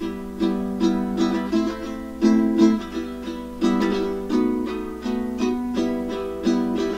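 Caramel CT-100 ukulele strumming chords of a piece in E minor, in a rhythmic strum pattern with a stronger stroke every second or so and ringing chords between them.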